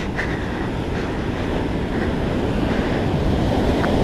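Steady rush of surf breaking and washing up a sand beach, with wind rumbling on the microphone.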